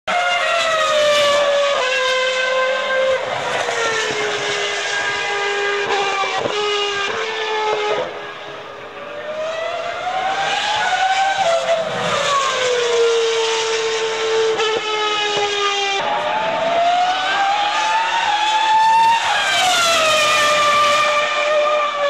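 2003 Formula 1 cars' 3.0-litre V10 engines screaming at high revs as several cars pass. The pitch climbs and falls again several times, with sudden drops at gear changes.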